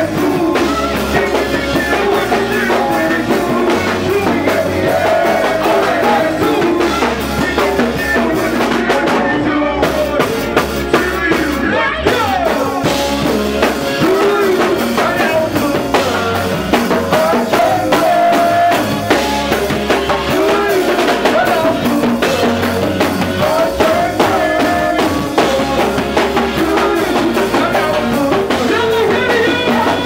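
Go-go band playing: a drum kit keeps a steady beat under a repeating bass line and keyboards, with a vocalist singing over it.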